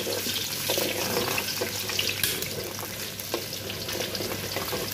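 Chopped onion sizzling in hot oil in a steel wok, with a steady hiss, while a metal ladle stirs it and now and then scrapes and knocks against the pan.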